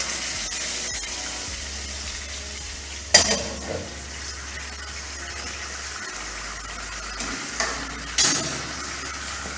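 Tomato sauce sizzling in a frying pan on a gas hob, just after water has been added, with a steady hiss. A sharp metal knock comes about three seconds in, and another clatter near the end.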